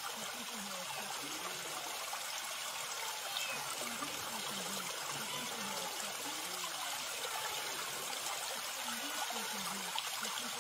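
Small forest stream running over rocks, a steady rushing of water.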